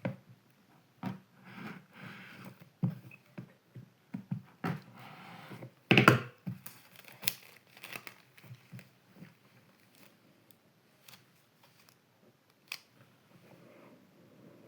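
Wireless-earbud packaging being unboxed by hand: crinkling and tearing of wrapping, with scattered clicks and knocks, the loudest about six seconds in.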